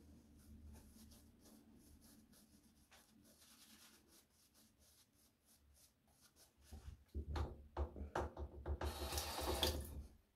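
Synthetic-bristle shaving brush working shaving-soap lather onto the neck in rapid rubbing strokes. The strokes are faint at first, become much louder about seven seconds in, and stop abruptly near the end.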